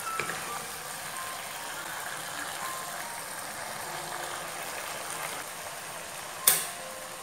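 Chicken liver and gizzard sizzling in sauce in a frying pan over a portable gas stove's burner, a steady hiss. About six and a half seconds in comes one sharp click as the stove's knob is turned to shut the burner off.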